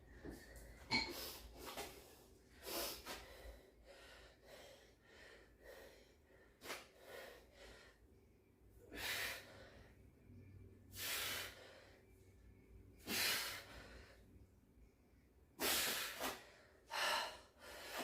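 A man breathing hard from weightlifting exertion, with sharp, noisy exhales every second or two and quieter breaths between.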